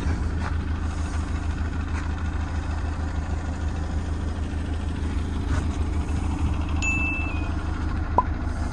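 A motor vehicle's engine running with a steady low rumble. A brief high tone about seven seconds in.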